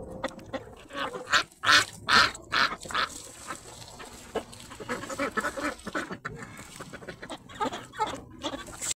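A group of domestic white ducks quacking and calling. There is a run of loud quacks about one to three seconds in, and more scattered calls after that.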